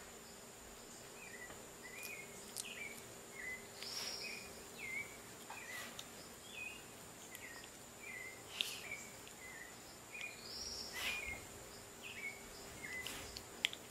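Faint, short high chirps repeating roughly twice a second, with two longer squeaks about four and eleven seconds in, over a steady faint hum and hiss.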